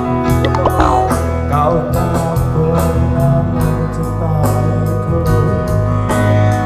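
Live band playing a pop ballad with saxophone, electronic keyboard and bass guitar under a regular beat, a male singer singing into a microphone over it.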